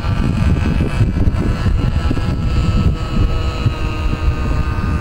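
Keil Kraft Super 60 model plane's small engine droning as it flies past, a thin high note that sags slightly in pitch. Heavy wind buffeting on the microphone.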